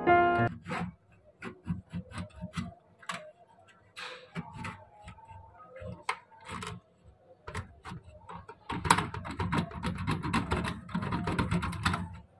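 Scattered clicks and taps of a thin metal tool and fingers working against an aluminium sliding window frame. About nine seconds in they turn into a denser stretch of rattling and scraping as the frame is worked at.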